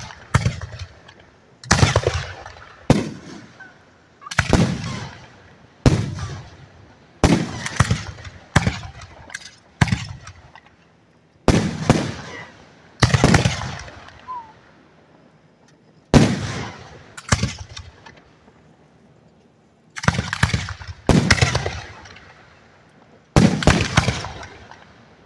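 Aerial firework shells bursting directly overhead: a string of sharp booms every second or two, each dying away over a second or so, with a short lull about halfway through.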